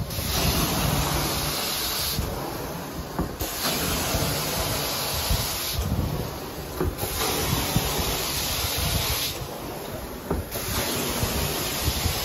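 Carpet extraction wand drawn across carpet in strokes: a steady suction roar, with a sharper hiss that comes on and cuts off again about every three and a half seconds, in time with the strokes.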